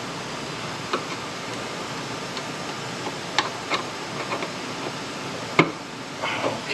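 Scattered light taps and clicks of a screwdriver probing rusted sheet steel, over a steady background hiss; the sharpest knock comes about five and a half seconds in.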